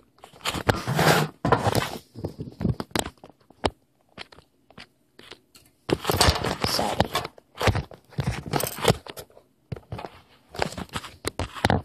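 Kitchen knife chopping raw carrot into small pieces on a hard countertop: quick knocks of the blade with crunching, in several bursts with short pauses between. Knocks and rubbing from the camera being handled are mixed in.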